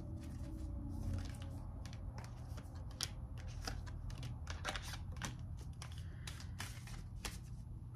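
Tarot cards being handled and shuffled: a scattering of light, irregular clicks and card snaps over a low steady hum.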